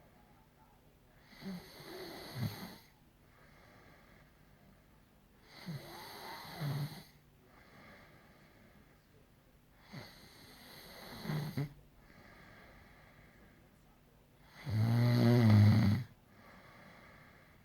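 Snoring: four snores spaced about four seconds apart, with quiet breathing between them. The last snore, near the end, is much the loudest.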